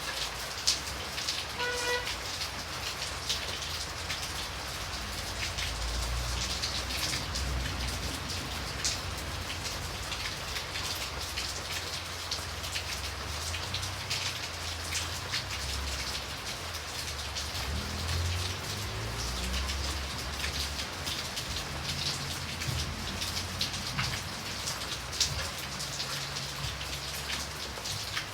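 Steady rain falling, with many close drops ticking, over a low rumble that swells and fades. A brief pitched note sounds about two seconds in.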